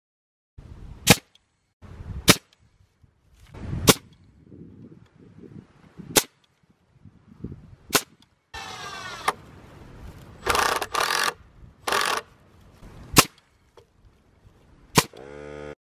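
Pneumatic framing nailer firing nails into pressure-treated lumber, about seven sharp separate shots spaced irregularly, with duller noises between them.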